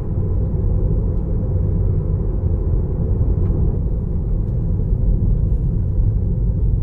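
Steady low rumble of road and wind noise inside a moving Tesla's cabin, with strong gusty wind buffeting the car.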